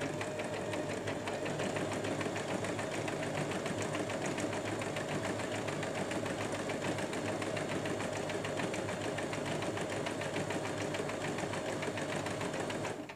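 Singer 2263 Tradition sewing machine running steadily at a fast, even stitching rhythm, sewing an overlock (overcast) stitch along a fabric edge with the overcast presser foot.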